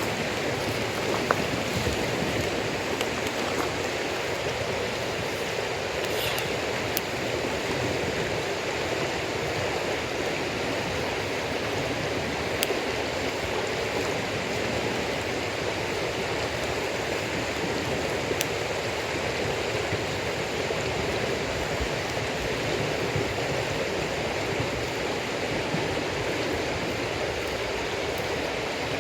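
Wood campfire of damp firewood burning, with a few sharp, scattered pops and crackles over a steady rushing hiss.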